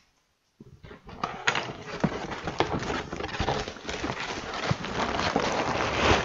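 A cardboard box being opened and tipped, with sealed plastic bags of Lego pieces crinkling and clicking against the cardboard and each other. It starts after a near-silent first second and grows steadily louder.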